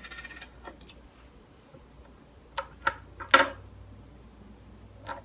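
A few separate sharp clicks and clinks of metal hardware being handled as a nut is unscrewed and taken off a microphone stand mount, the loudest about three and a half seconds in with a short ring.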